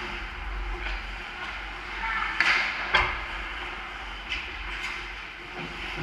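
Ice hockey skates scraping and carving on the rink ice around the goal, with a loud hissing scrape about two and a half seconds in and a sharp knock of stick or puck half a second later.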